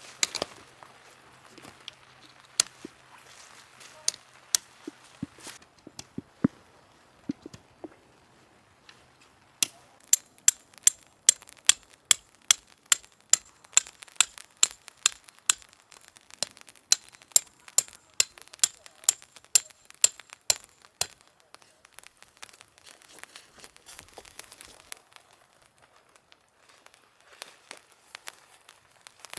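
A series of sharp taps or knocks, scattered at first, then a steady run of about two to three a second for roughly ten seconds, then fading to fainter scattered taps.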